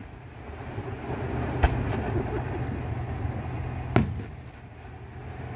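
Fireworks going off in the distance: a lighter bang about a second and a half in and a sharper, louder bang about four seconds in. A steady low hum runs underneath.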